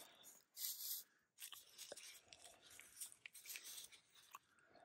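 Near silence with faint, scattered rustling and small crackles close to the microphone, loudest about a second in.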